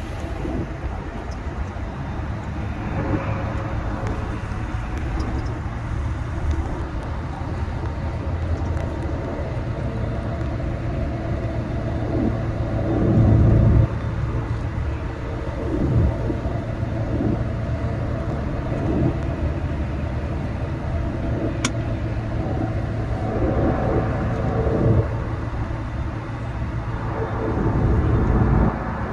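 A car driving along a road, its engine and tyres giving a steady low rumble that swells louder several times, most strongly about halfway through.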